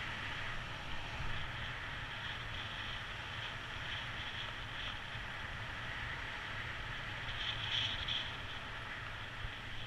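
Steady wind rushing over the microphone of a paraglider in flight, with a low buffeting rumble. A brief high-pitched chirping comes through about two-thirds of the way in.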